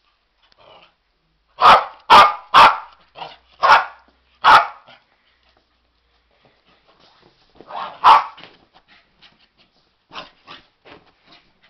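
West Highland white terrier barking: a quick run of five loud, sharp barks, then a pause, a double bark, and several quieter, shorter barks near the end.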